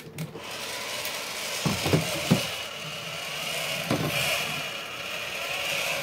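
Battery-powered motor and gearbox of a vintage Mattel Masters of the Universe Spydor walking-spider toy whirring as it walks forward on its mechanical legs. It whirs into motion just after the start, with a few louder knocks about two seconds in and again near four seconds. It runs on C batteries that the owner thinks may not be the best.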